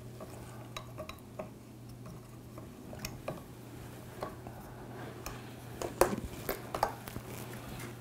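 Small clicks and light knocks of metal camera-rig parts being handled as an SSD enclosure is twisted onto a ball-head mount, with a few louder knocks about six seconds in. A faint steady hum runs underneath.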